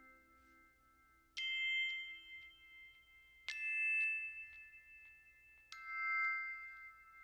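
Three struck chime notes of different pitch, about two seconds apart, each ringing out slowly, as part of outro music. A plucked-string tune fades out just before the first one.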